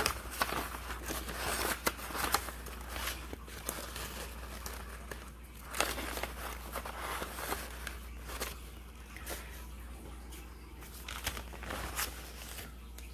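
Loose sheets of lined paper and folded printer paper rustling and crinkling as they are leafed through by hand, in irregular bursts with sharp little crackles.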